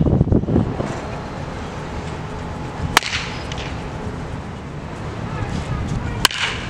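A wooden baseball bat hitting a ball twice in batting practice: two sharp cracks, one about three seconds in and another near the end.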